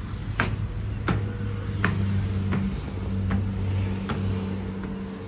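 Footsteps at a steady walking pace, about one every three-quarters of a second, over a steady low hum.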